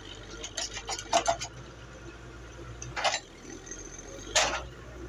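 Metallic clanking and knocking: a quick cluster of sharp knocks about a second in, then single knocks near three seconds and four and a half seconds, over a steady low hum.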